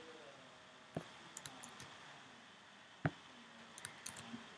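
Scattered clicks of a computer mouse and keyboard, with two sharper clicks about one and three seconds in and lighter ticks between them and near the end.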